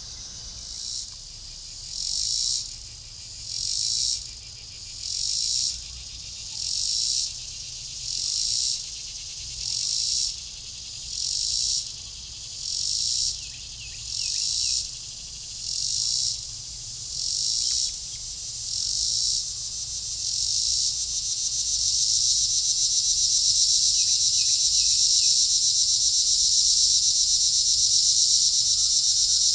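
Dusk chorus of insects: a high buzzing that swells and fades about once every second and a half, then merges into a louder continuous drone about twenty seconds in.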